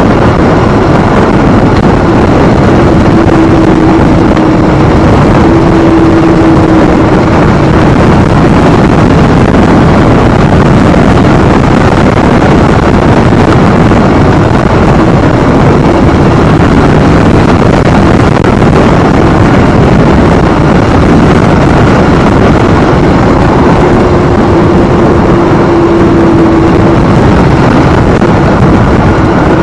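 Harley-Davidson motorcycle running steadily at riding speed, with its engine note under heavy wind rush on the microphone.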